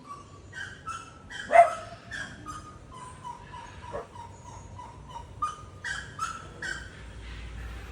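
Gray-necked wood rail calling: a string of short, irregular calls, the loudest about one and a half seconds in.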